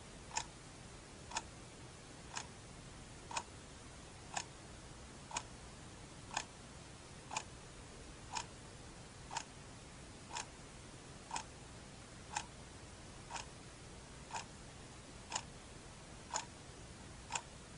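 A clock ticking steadily, one tick a second, over a faint steady hiss.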